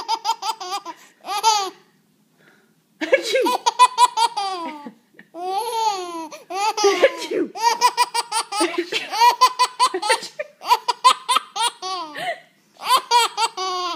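A baby laughing, high-pitched, in repeated bouts of quick breathy pulses, with a short pause about two seconds in.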